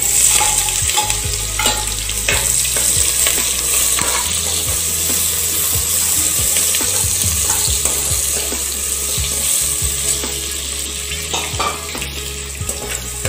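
Sliced onions frying in hot ghee in a pressure cooker pot: a steady sizzle as they go in and are stirred with a perforated steel ladle, which clicks and scrapes against the pot now and then.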